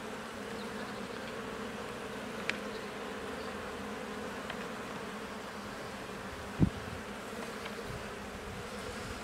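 Honeybee colony in an open hive humming steadily and loudly, the roar that the beekeeper takes for the sign of a colony that has lost its queen. A few light clicks of a metal hive tool on the wooden frames, and one louder knock about six and a half seconds in as a frame is pried loose.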